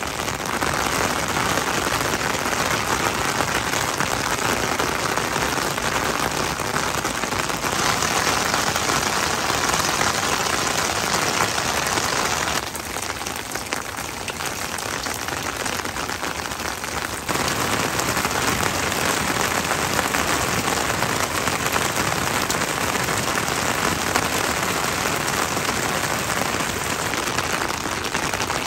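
Steady rain falling, a dense even patter, with a noticeably quieter stretch of several seconds around the middle.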